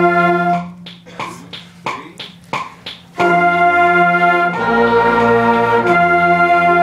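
School concert band of woodwinds and brass holding long sustained chords. The chord breaks off for about two seconds, with only short scattered notes, then comes back. About halfway through it moves to a different chord for a second or so and then returns.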